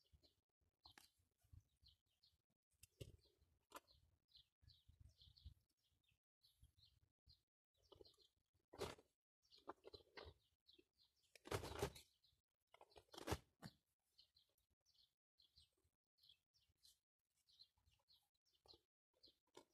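Small birds chirping faintly with many short, repeated high calls. A few louder rustles and knocks come in the middle.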